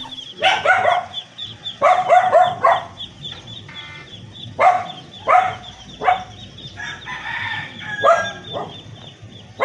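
Chickens calling in short repeated bursts, in about four groups, over a constant high peeping of ducklings.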